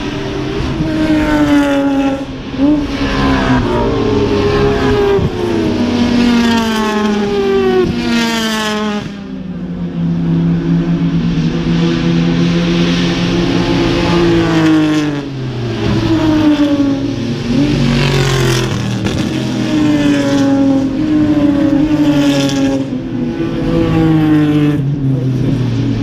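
Race cars accelerating hard past the trackside, one after another, their engine notes climbing through the gears and dropping at each upshift, with several cars overlapping at times.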